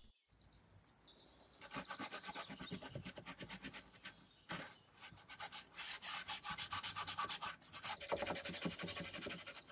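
Quick, rhythmic back-and-forth hand rubbing along the wooden edge of a credenza top, like hand sanding. There is a short pause about four seconds in, and the strokes come faster afterwards.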